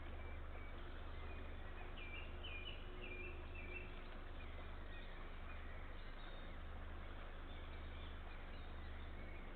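Outdoor ambience through a nest-camera microphone: a steady hiss over a constant low hum. A small songbird sings a short, faint warbling phrase about two seconds in, with a few fainter chirps later.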